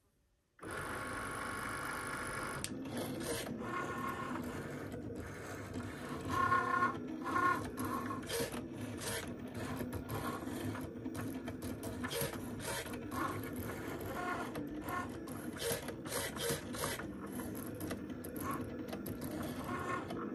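Cricut Maker cutting cotton fabric with its rotary blade: a steady motor whir, broken from about three seconds in by many short stops and clicks as it works, cutting off abruptly near the end.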